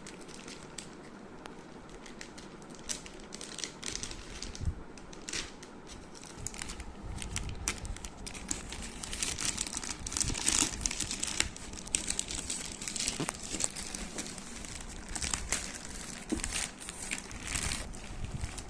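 Product packaging being opened by hand: crinkling, rustling and tearing with scattered small clicks, sparse at first and busier and louder from about seven seconds in.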